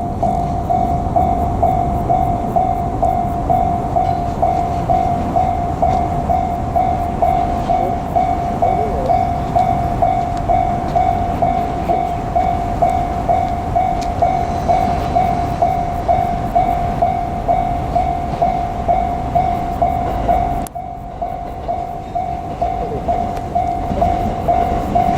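Japanese railway level-crossing warning bell ringing in an even electronic ding-ding, about two and a half dings a second, signalling that a train is approaching the crossing. A steady low rumble runs underneath and drops off abruptly near the end.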